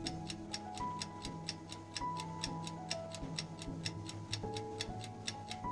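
Stopwatch ticking, quick and even at about five ticks a second, counting off a dental light-curing interval, over soft background music with held notes.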